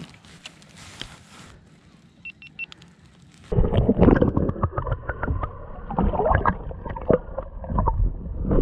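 Lake water heard through a submerged GoPro Hero 7 Black's waterproof housing. About three and a half seconds in, the sound turns loud and muffled, with the highs cut off, full of gurgling and knocks of water against the case. Before that there are only faint clicks.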